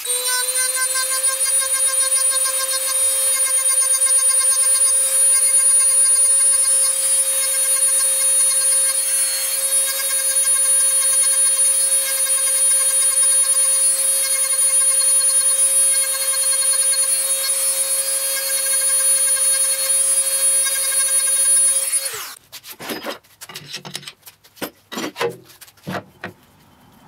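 Handheld high-speed rotary tool with a small burr carving dimples into a turned wooden spindle: a steady high-pitched whine with some grinding hiss, rising slightly in pitch as it comes up to speed. It stops suddenly about 22 seconds in, and a few irregular knocks and clatters follow.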